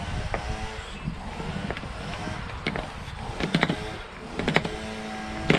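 Lever-action grease gun being pumped into a mini excavator's track-adjuster grease fitting, tensioning the rubber track: a run of sharp clicks and clacks from the gun's lever strokes, about one a second, getting louder in the second half.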